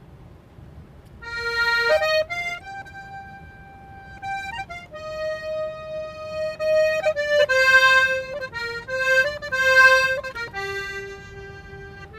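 Button accordion playing a slow Irish traditional melody in long held notes, coming in about a second in over a low rumble.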